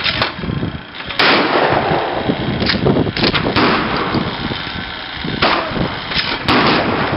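Several shotgun shots, each a sharp crack that rings out with an echo. The loudest comes about a second in.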